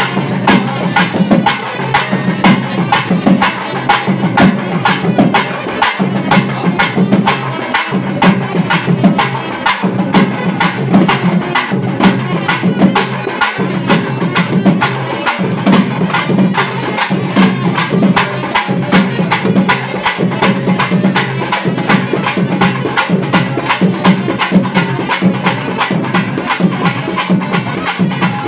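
Loud ritual percussion music: drums and clappers beating a fast, even rhythm of about four to five strokes a second over a steady low pitched drone.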